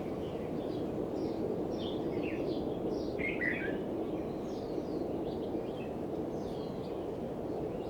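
Small birds chirping, many short separate calls that are busiest about three seconds in, over a steady low rushing background noise.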